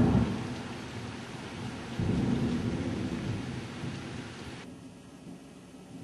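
Thunder rumbling over the hiss of heavy rain. One rumble dies away at the start and another rolls in about two seconds in and fades. The rain hiss cuts off suddenly near the end.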